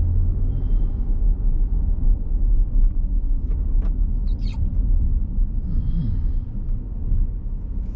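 Low, steady rumble of a car's engine and tyres heard from inside the cabin while driving slowly, with a few faint clicks around the middle.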